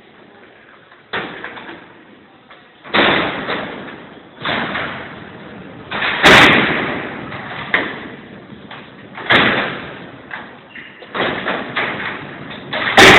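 Steel cell doors of the Alcatraz cellhouse, worked by the cellblock's gear mechanism, sliding and clanging shut one after another, about eight heavy clangs. Each clang echoes through the hall, and the loudest comes about six seconds in.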